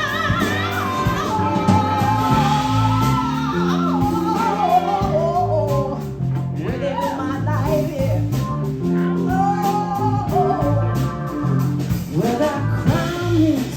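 Live soul band playing, a stepping bass line under a bending melodic lead with wordless singing.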